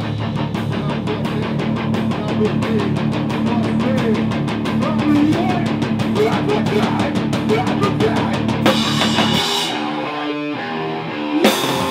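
A rock band playing: a drum kit hit in a fast, steady rhythm under electric guitars and a bass guitar. About nine seconds in, the band breaks into a sparser stop-start passage, then comes back in full near the end.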